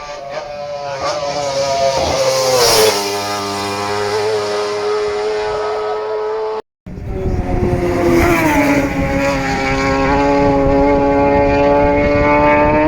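Racing motorcycles at full speed: one bike's engine note grows louder and drops in pitch as it passes, then a sudden cut about halfway through leads into a second bike whose note also drops as it goes by and then holds steady.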